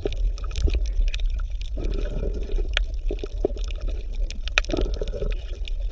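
Water bubbling and gurgling over a steady low rumble, with scattered small pops.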